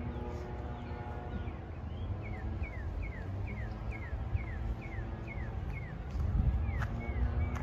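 A songbird repeating a short down-slurred whistled note about two and a half times a second, around ten in a row, then switching near the end to a run of arched notes. Beneath it a low rumble and a faint steady hum.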